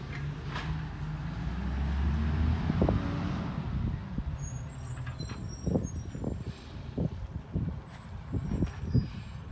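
Refuse truck's engine running, revving up about two seconds in, with a short sharp burst near three seconds. After that comes a string of irregular low thumps and knocks.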